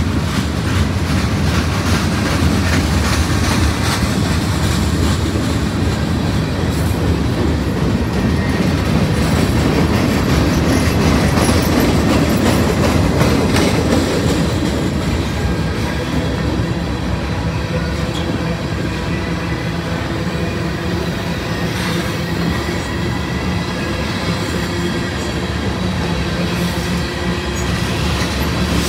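Union Pacific manifest freight train's cars rolling past: a steady rumble of steel wheels on the rails with continuous clatter.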